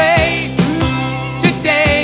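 Background music: a rock-style song with drum hits, a steady bass line and a wavering melody on top.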